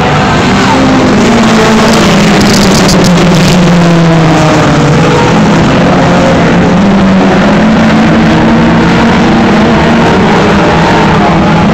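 Several dirt-track race car engines running loud at racing speed around the oval, their pitch rising and falling as the cars go through the corners and past the stands.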